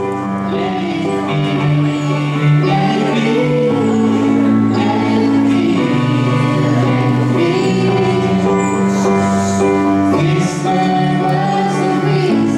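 A girl sings through a microphone, accompanied by held chords on an electronic keyboard.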